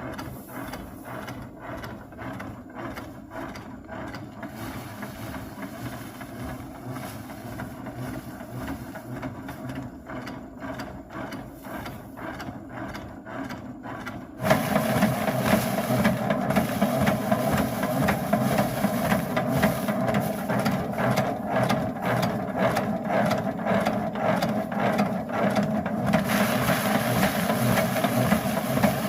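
A small machine running with a steady, fast mechanical clatter. About halfway through it becomes abruptly louder and fuller.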